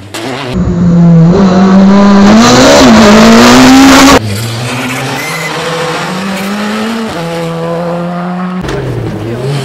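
Rally car engines at full throttle in a string of short cuts. One car goes by very close and loud, its engine note climbing for about three and a half seconds before the sound cuts off abruptly. More distant rally cars follow, accelerating with a steady then rising engine note.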